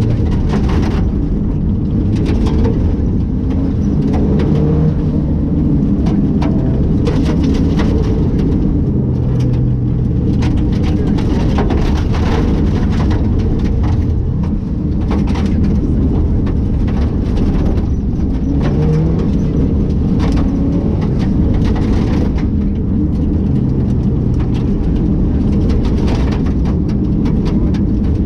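Rally car engine running hard at full load, heard inside the stripped cabin, its note rising and falling, with many sharp cracks and rattles of gravel striking the underbody.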